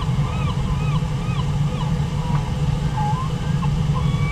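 Steady rush of a waterfall and river, with gulls calling over it: a quick run of rising-and-falling cries, about two or three a second, for the first second and a half, then scattered shorter, flatter calls.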